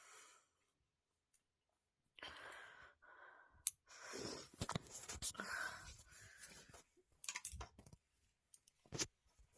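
Faint breaths and sighs from a woman, starting about two seconds in, with a few small clicks.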